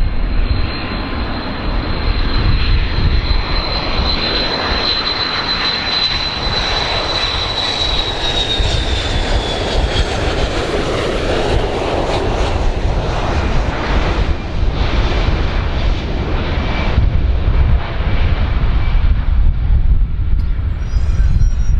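Boeing 727-200 jet on landing approach, its three rear-mounted JT8D turbofans running with a high steady whine over a broad roar. The whine slides down in pitch a little before halfway as the jet passes close by, and the roar then thins out as it goes away toward touchdown.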